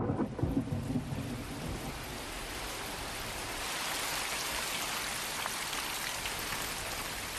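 Heavy rain pouring onto pavement as a steady, even hiss. The tail of a thunder rumble dies away in the first couple of seconds.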